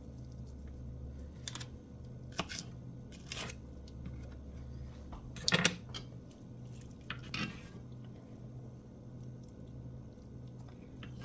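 Napa cabbage leaves being handled and laid on a wooden cutting board: about five short crinkly rustles, the loudest a little past the middle, over a faint steady hum.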